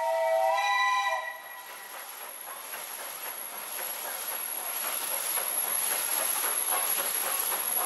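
Steam locomotive's whistle sounding a chord of several notes that lifts slightly in pitch and cuts off about a second in. The locomotive and its coaches then pass close by, their wheels clattering over the rails in a rising, hissing rumble that grows louder toward the end.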